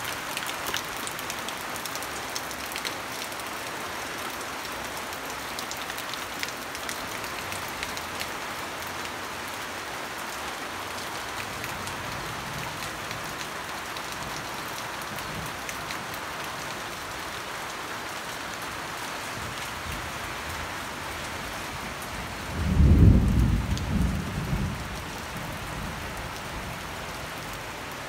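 Steady rain falling on foliage, with fine pattering drops. Near the end a low rumble of thunder lasts two or three seconds and is the loudest sound.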